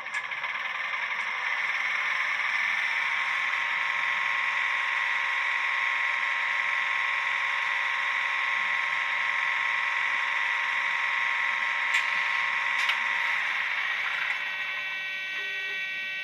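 HO-scale Trix BR 103 electric locomotive model running with a steady whirring hiss and a thin high whine. Two faint clicks come about twelve and thirteen seconds in, and the tone shifts near the end.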